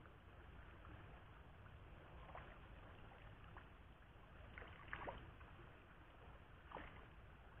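Near silence with a faint steady hiss, broken by a few faint small splashes of fish rising at the river surface, the loudest about five seconds in and another near seven seconds.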